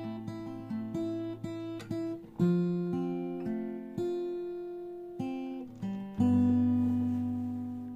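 Background music of an acoustic guitar playing plucked and strummed chords, a new chord every half second or so, the last one held and ringing out from about six seconds in.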